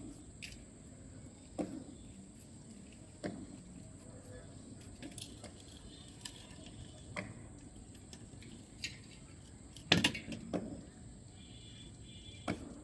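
Irregular sharp clicks and knocks, about a dozen, with the loudest about ten seconds in, over a faint steady high-pitched hiss.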